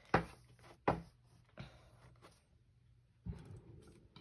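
Four sharp clicks: the loudest just after the start, another just under a second later, a fainter one about a second and a half in, and a last one near the end followed by a soft rustle.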